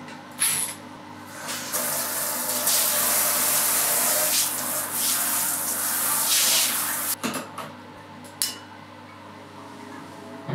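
Water running from a bath mixer into a bathtub, swelling and easing, then shut off about seven seconds in, followed by a couple of light knocks.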